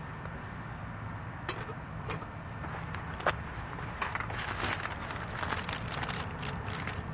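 A metal pan set down on a small wood gas stove with a few sharp clinks, then a clear plastic bag crinkling as it is handled from about four seconds in, over a steady low rumble.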